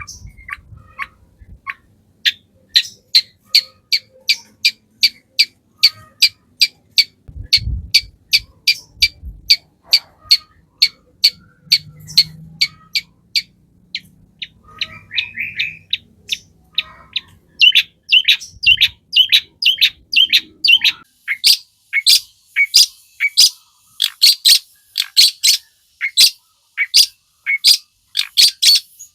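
Long-tailed shrike (cendet) singing: a long run of sharp, harsh chips repeated about three times a second, quickening into a denser chatter about two-thirds of the way through.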